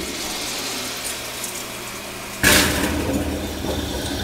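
Acorn vacuum toilet flushing: water rinsing into the bowl, then about two and a half seconds in a sudden loud whoosh as the vacuum sucks the bowl empty, settling into a steady low rush.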